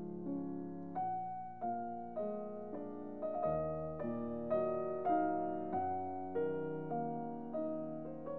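Background piano music: a slow, gentle line of single notes, each struck and left to fade, about one every half second or so.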